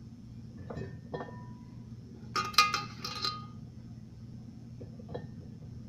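Metal cookware clinking and knocking as cut vegetable pieces are lifted from a metal colander and dropped into a Bundt pan: two light knocks, then a loud cluster of ringing clinks about two and a half seconds in, and a few soft taps near the end.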